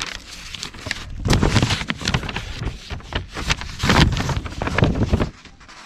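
Wind buffeting the microphone in irregular gusts, with the strongest surges about a second and a half and four seconds in.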